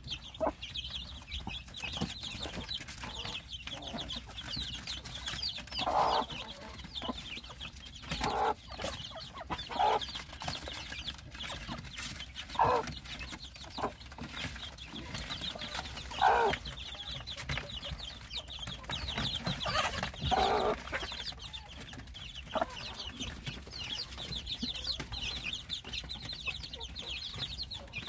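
A brood of young chicks peeping constantly in high, rapid chirps, with a Korean native hen (토종닭) clucking in short, louder, lower calls every few seconds as the chicks feed.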